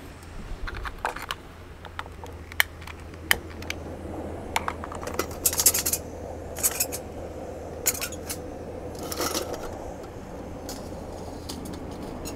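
Light metallic clicks, clinks and scrapes as a thin metal stove windscreen is adjusted and a metal mug is set down into it on a backpacking gas stove, about a dozen small knocks scattered irregularly, some in quick clusters.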